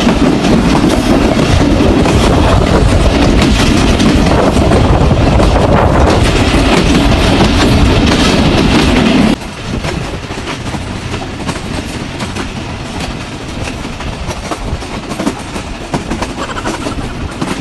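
Pakistan Railways passenger train running at speed: steady wheel and rail noise heard from an open carriage window beside the coaches. The sound is loud for about the first nine seconds, then drops abruptly and goes on more quietly.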